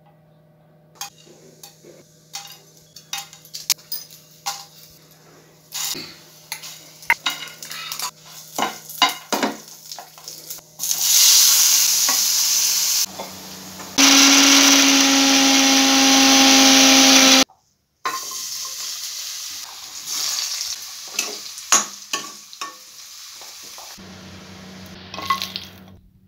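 Kitchen cooking sounds: a run of taps and clinks of a spoon on a pan, a loud hiss about eleven seconds in, then an electric mixer grinder running loudly for about three seconds with a steady motor whine before stopping abruptly. Afterwards, lighter sizzling of oil in a pan with more stirring taps.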